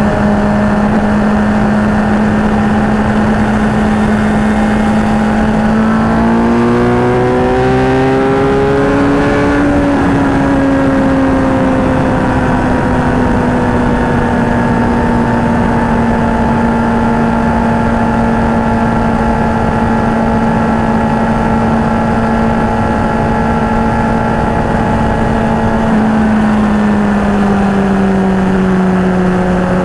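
Suzuki GSX-R750 inline-four engine running at freeway cruise, with wind noise throughout. The revs climb for a few seconds from about six seconds in, settle back to a steady note, and ease off near the end as the bike slows.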